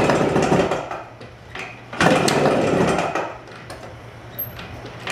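Yamaha AT1 125's single-cylinder two-stroke engine running and revved up twice, at the start and again about two seconds in, settling back between; the engine has a rod knock.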